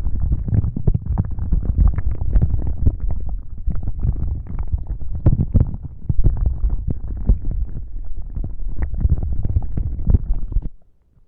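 Fast, continuous rubbing and scratching against the microphone, a dense muffled rumble of small knocks that stops abruptly near the end.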